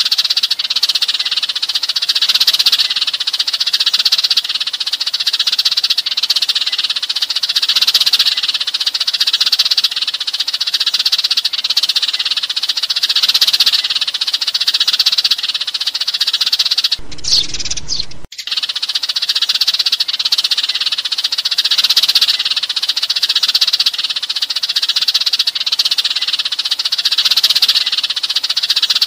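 A flock of Eurasian tree sparrows chirping and chattering densely without pause, a flock-calling recording used as a lure to draw sparrows in. About 17 seconds in the chatter breaks off for a second or so, then resumes.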